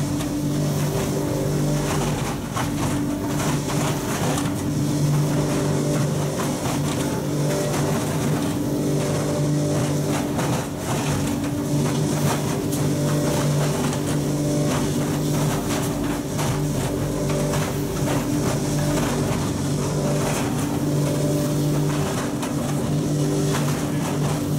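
Insulation blowing machine running steadily: its blower gives a constant hum over rushing air, with a light rattle as loose-fill insulation flakes are blown through the hose.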